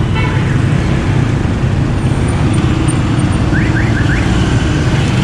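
Busy road traffic: cars, motorcycles and auto-rickshaws running past in a steady, loud rumble, with a steady engine hum through the second half and a few short rising chirps about three and a half seconds in.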